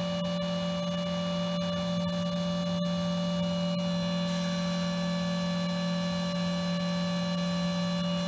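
Electric motor and hydraulic pump, salvaged from an old sausage machine, running with a steady hum as they drive the tube bender's ram through a bend.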